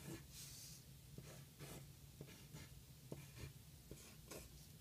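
Faint pencil strokes scratching on drawing paper, a series of short scratches about two a second.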